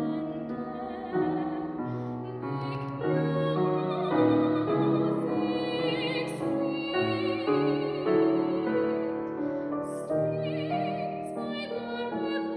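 A young female classical singer sings an art song with a wide vibrato on long held notes, over a piano accompaniment.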